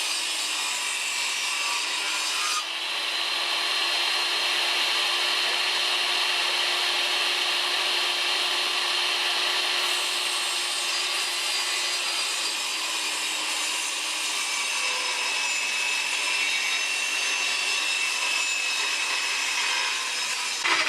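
Electric circular saw cutting through a wooden board in one long, continuous cut, its motor whine steady and slightly dropping in pitch past the middle.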